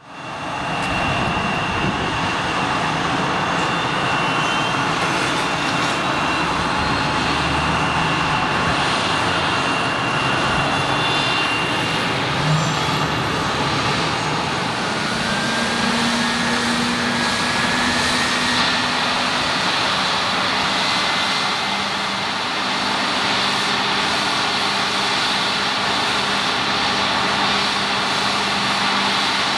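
The two turbofan engines of a Bombardier CS300 airliner running at low power: a steady rush with a high whine, and a few faint tones slowly rising in pitch.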